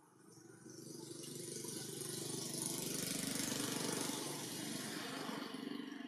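A motor vehicle going past: its engine noise swells over a couple of seconds, is loudest around the middle, and fades near the end.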